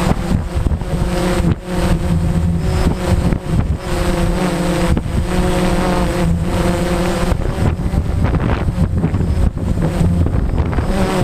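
DJI Phantom quadcopter's motors and propellers humming steadily, the pitch wavering up and down as the motors work against the gusts. Strong wind buffets the microphone throughout.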